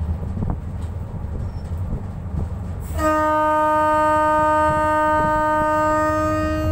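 Low rumble of a running locomotive heard from its cab; about three seconds in, the locomotive's horn starts and holds one long steady blast.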